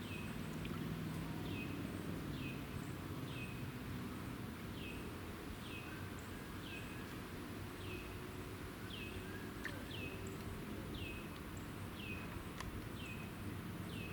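A bird repeating a short, downward-slurred whistled call about once a second, over a steady low outdoor rumble.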